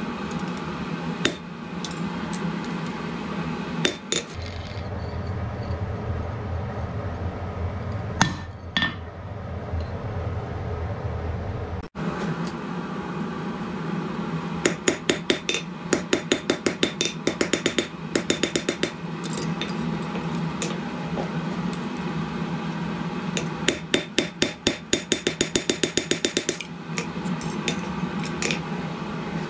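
Hand hammer striking a hot piece of reinforcement bar on the anvil, cutting it over the hardy. The blows ring out singly at first, then come in two quick runs of many strokes, one in the middle and one near the end. A steady low hum runs underneath.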